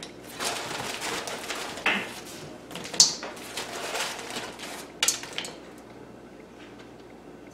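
Kitchen handling noises at a wok on the stove: a few sharp clinks and knocks, the loudest about three seconds in, with rustling between them. It goes quieter after about five and a half seconds.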